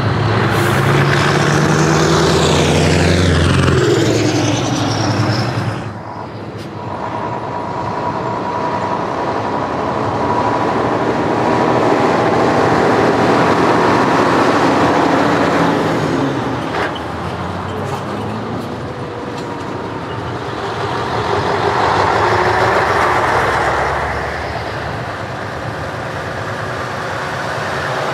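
Heavy diesel show trucks driving past one after another, including an older Volvo F-series tipper and a new-generation Scania. The engine and tyre sound swells and fades three times as each truck goes by.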